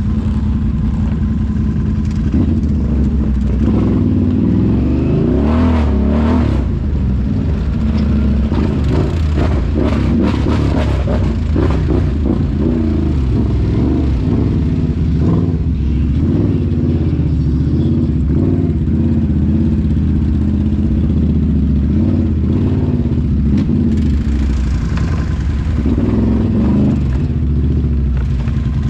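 ATV engine running and revving up and down under load, with a stretch of rattling and clatter in the first half.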